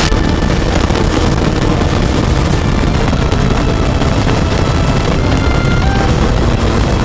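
Onboard sound of a Rotax DD2 125 cc two-stroke kart engine running steadily under way, mixed with heavy wind rumble on the microphone.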